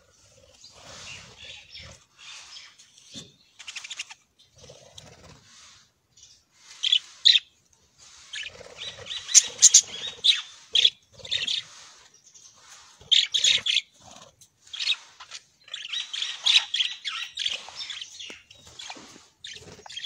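A flock of budgerigars chattering and chirping in rapid, irregular bursts, with wings fluttering as birds fly about the aviary. The chatter is sparse at first and grows busier and louder from about halfway.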